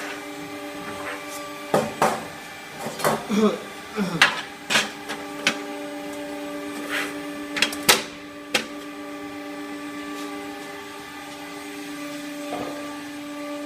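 Hydraulic gorelocker elbow-forming machine running with a steady pitched hum, with a run of sharp metal clanks and knocks through the first half.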